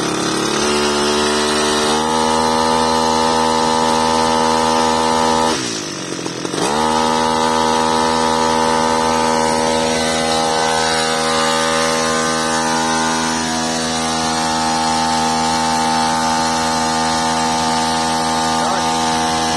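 Mitsubishi T170 two-stroke brush cutter engine held at high revs, driving a shaft-mounted water pump that is pumping river water. The revs climb in steps over the first couple of seconds, sag briefly about five and a half seconds in, then pick back up and hold steady.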